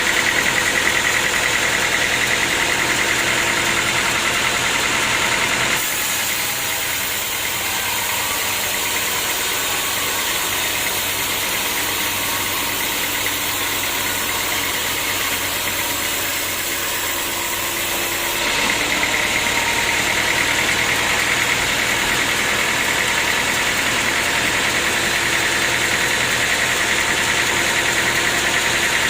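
Sawmill machinery running steadily and loudly. Its sound changes abruptly about six seconds in, losing a high whine, and the whine comes back about two-thirds of the way through.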